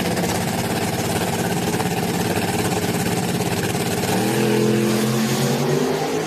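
Drag-racing pickup trucks' engines held at steady revs on the starting line, then launching about four seconds in, the engine note stepping up in pitch and getting louder as they accelerate away.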